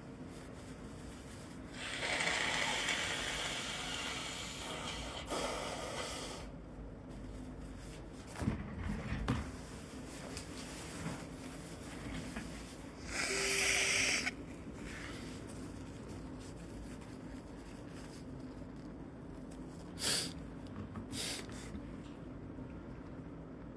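A person sniffling and snorting through a stuffy nose: a drawn-out breath of about four seconds near the start, a louder sniff of about a second halfway through, and two short sharp sniffs near the end.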